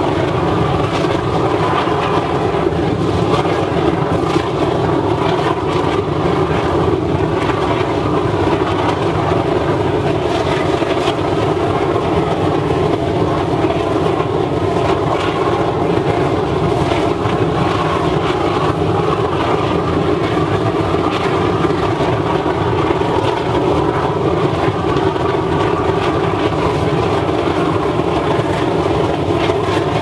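300 kW waste-oil burner firing into a furnace, a steady, loud, unbroken noise with no change in level.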